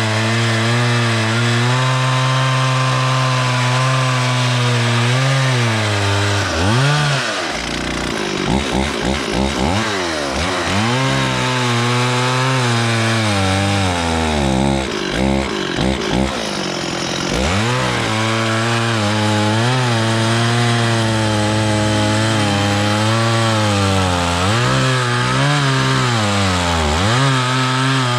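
Stihl 440 two-stroke chainsaw cutting wood, the engine pulling at a steady pitch under load. Twice the revs swing up and down as the load changes, about a quarter of the way in and again just past halfway.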